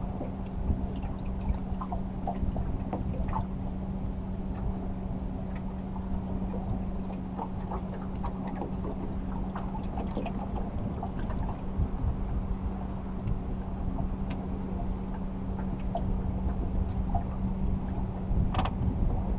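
Fishing boat on a river: a steady hum under a low rumble of water and wind on the microphone, with scattered small ticks and one short clatter near the end.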